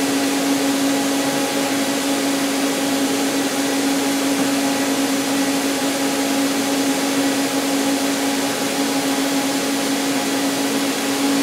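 DMG Mori Sprint 42/8 CNC Swiss lathe powered up and idling: a steady machine hum with one constant tone over an even hiss.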